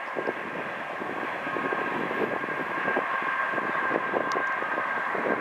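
Train running by: steady rumbling, rattling rail noise with a steady high whine over it.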